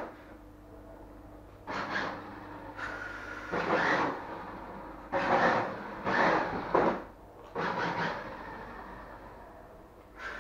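Toy-grade Mondo Motors 1:10 RC Porsche 918 Spyder driven in short spurts: its small battery-powered electric motor and gears whirr and its hard plastic tyres scrub on the hard floor. There are about five bursts with short pauses between them.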